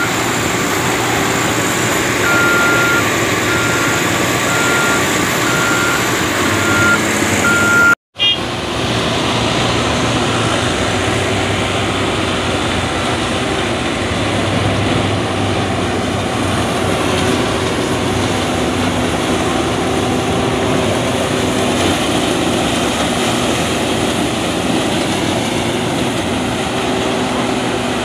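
Case sugarcane harvester running steadily, its engine and cutting machinery working. A high beeping alarm repeats a little faster than once a second through the first several seconds, until a sudden break about eight seconds in. After that the harvester runs on as it cuts standing sugarcane, with a New Holland tractor and trailer running alongside.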